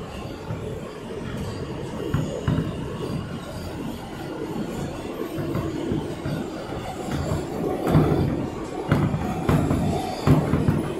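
New York City subway train running, heard from inside the car: a steady rumble of wheels on track, with irregular knocks that get louder and more frequent in the second half.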